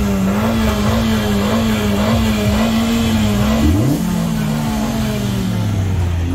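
Two car engines revved hard at the same time through loud aftermarket exhausts. One is held at steady high revs with a slight waver. About three and a half seconds in, the other climbs sharply, holds briefly, then drops back to a lower steady drone.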